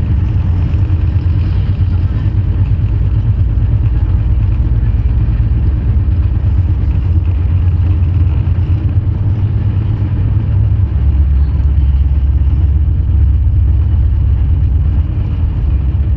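Moving passenger train heard from on board: a steady, loud rumble of the coach running on the rails, growing a little deeper about eleven seconds in.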